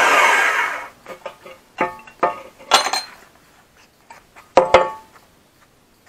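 A band saw's motor and blade wind down and stop in the first second. Then cut pieces of steel tube clink and clank against the steel saw table as they are handled, with sharp ringing knocks, two louder clanks a couple of seconds apart.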